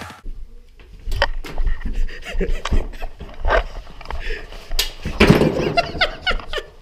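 Makeshift swords clashing in a mock sword fight: a run of irregular sharp whacks and clatters mixed with scuffling on the floor. A voice briefly calls out or laughs about five to six seconds in.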